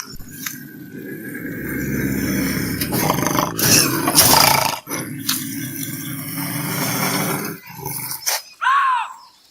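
Bobcat growling in a long, low, pulsing rumble that swells into a loud, noisy scream about four seconds in. Near the end comes a short high call that rises and falls in pitch.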